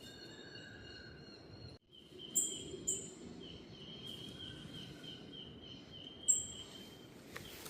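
Rainforest ambience: a steady high insect drone that pulses evenly, with three short, sharp, high bird chirps that fall in pitch, two close together about two and a half seconds in and one about six seconds in. The sound cuts out briefly just before two seconds in.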